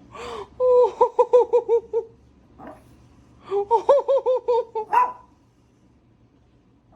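Young puppy crying in two bouts of rapid, pulsing high yelps, each about a second and a half long, the distress of a puppy separated from its mother.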